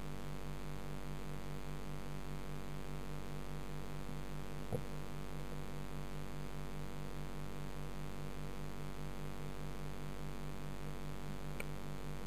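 Steady electrical hum with hiss, picked up by a camera submerged in a turtle tank, with a regular low throb under it. A single short click sounds about five seconds in, and a fainter one near the end.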